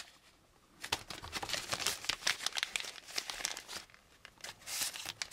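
Clear plastic bag crinkling as it is handled and opened to pull out a thin strip of plastic tubing. It starts about a second in, in close irregular crackles, with a short lull near the end.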